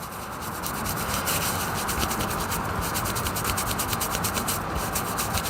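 A cleansing wipe rubbed quickly back and forth over the skin of a hand, scrubbing off an eyeliner swatch: a continuous scratchy rubbing.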